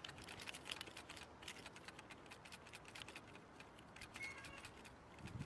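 Near silence with faint, irregular clicks and ticks, several a second.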